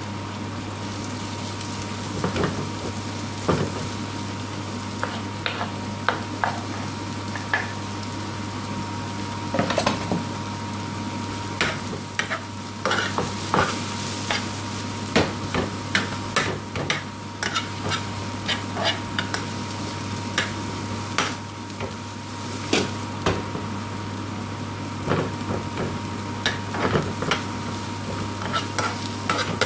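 Sliced onions sizzling in hot ghee in a frying pan, stirred with a metal spoon that clicks and scrapes against the pan many times.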